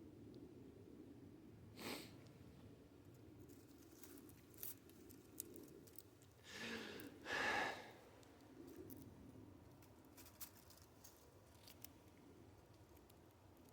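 A person's breathing while crying: a sniff about two seconds in, then a louder breath in and out around seven seconds in, with a few faint clicks.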